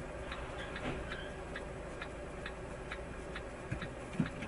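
Faint, regular ticking, about two ticks a second, over a low steady hum, with a soft low knock near the end.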